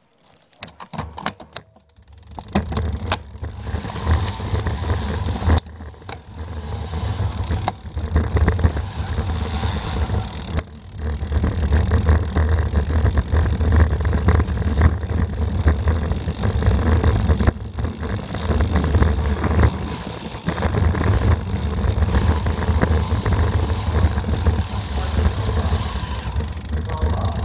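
Wind buffeting a bicycle-mounted action camera's microphone while riding, a heavy low rumble with a hiss over it, mixed with tyre noise on rough concrete. A few sharp clicks and rattles come in the first two seconds before the wind noise builds, and it dips briefly a few times.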